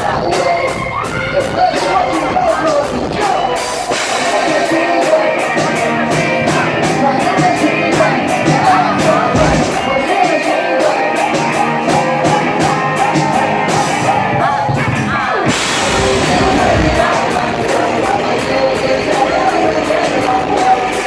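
Live rock band playing: a male lead vocal over guitars and drums, with a regular drum beat throughout. About fifteen seconds in there is a falling pitch slide.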